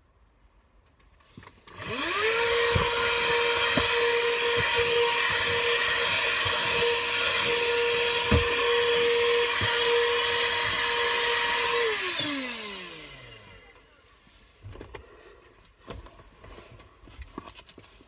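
Vacuum cleaner switched on about two seconds in, its motor whining up to speed, then running steadily for about ten seconds with a few knocks. It is switched off and winds down with a falling whine, followed by small knocks and rustles.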